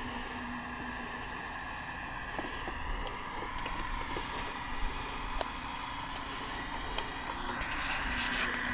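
Electric heat gun running steadily while stripping old finish off a teak toe rail, with a few light clicks from work on the wood. The sound grows a little louder near the end.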